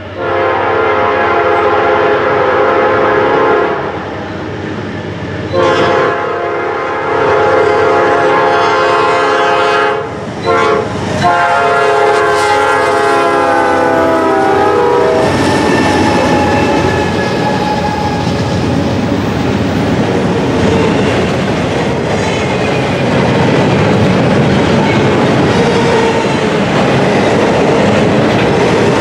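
Nathan P5 five-chime air horn on a Norfolk Southern GE D9-40CW locomotive blowing long, long, short, long: the grade-crossing signal. The last blast drops slightly in pitch as the locomotive passes. The locomotives and double-stack container cars then roll by steadily.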